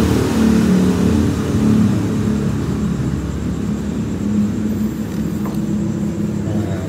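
A motor vehicle engine running with a steady low hum that gradually fades, leaving a low rumble.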